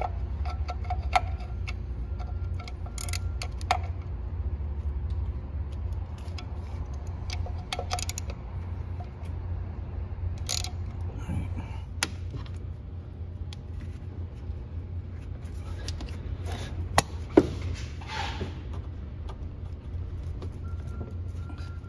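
Irregular metallic clicks and clinks of hand tools and engine parts being handled, with a couple of sharper knocks late on, over a steady low rumble.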